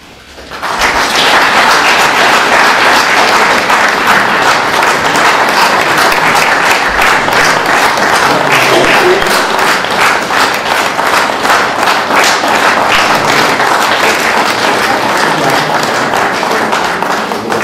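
Audience applauding: dense clapping that starts about a second in, holds steady and eases off near the end.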